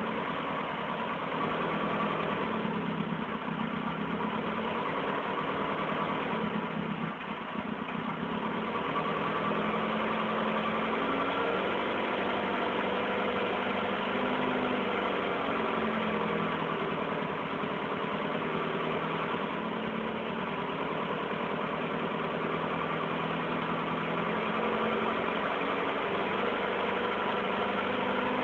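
Mercedes-Benz 170 Va (W136) four-cylinder side-valve petrol engine idling steadily through a stainless steel exhaust system. The level dips briefly about seven seconds in.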